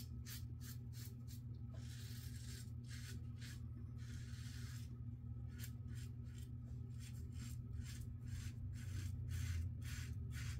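Yates Winning double-edge safety razor scraping through lathered two-day stubble on the neck in quick short strokes, about two or three a second, with two longer strokes in the first half. A steady low hum runs underneath.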